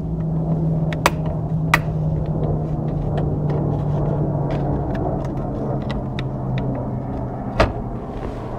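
Sharp clicks of plastic push clips being pried out of a plastic engine cover with a small screwdriver: a loud click about a second in, another just before two seconds, and one near the end, with fainter ticks between. Under them runs a steady low hum and rumble that slowly drops in pitch and fades near the end.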